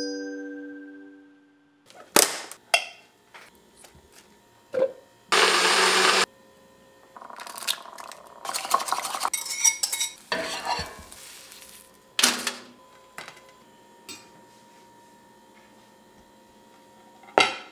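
Kitchen sounds of breakfast being made: scattered knocks and clinks of dishes and utensils, a second-long burst of steady whirring noise, then a few seconds of stirring and frying. A last ukulele chord fades out at the start, and a single knock near the end fits a plate being set down.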